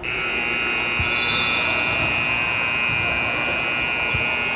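Basketball scoreboard buzzer sounding one continuous blast of about four and a half seconds, starting and stopping abruptly.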